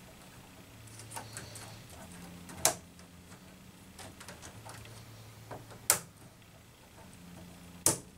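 K'nex plastic rods and connectors clicking and knocking as a large K'nex frame is handled and fitted together: scattered light ticks and three sharp clicks, about three seconds apart.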